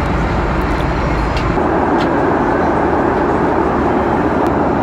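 Steady jet airliner cabin noise in cruise flight, a constant rush of engine and airflow. Its tone shifts about a second and a half in, with less deep rumble and more hiss, and there are a few faint ticks.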